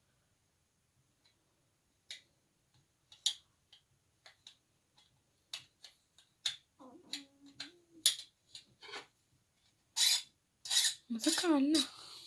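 Scattered small metal clicks and clinks from handling a small metal folding icon and hand tools at its hinged leaf. They grow denser and louder near the end.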